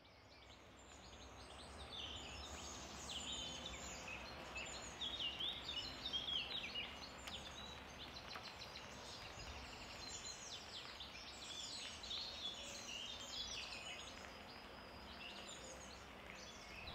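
Several songbirds chirping and trilling at once, faint, over a low steady background hum; the sound fades in over the first two seconds.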